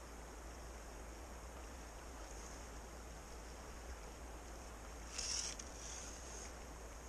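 Steady rush of flowing creek water with a low rumble underneath, and a brief, louder burst of noise about five seconds in.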